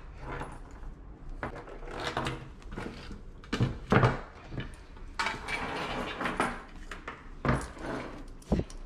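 Handling noises on a grooming table: irregular clinks and knocks of metal leash clips and grooming tools with rustling, and a few louder knocks about four seconds in and again near the end.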